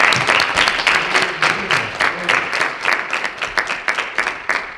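Congregation applauding at the end of a hymn, many quick claps that thin out near the end.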